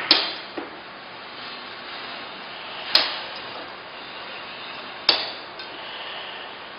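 Scored sheet glass snapped by hand along cut lines: three sharp cracks, each dying away quickly, about every two and a half seconds.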